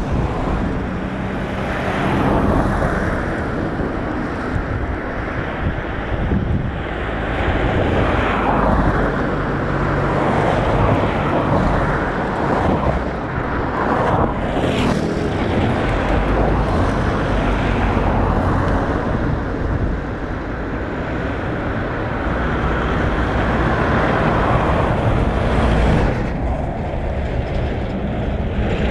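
Steady outdoor noise of wind on the microphone mixed with distant vehicle engine noise, with a brief sweep in pitch about halfway through.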